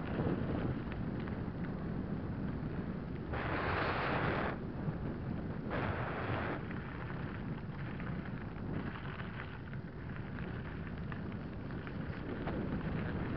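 Mountain bike descending a loose gravel track at speed: wind buffeting the microphone over the rumble and rattle of tyres on gravel. Two louder bursts of hiss, about a second each, come a few seconds in.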